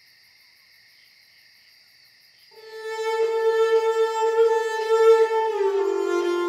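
Background film score: after a very quiet opening, a violin comes in about two and a half seconds in with a long held note, then slides down to a lower note near the end.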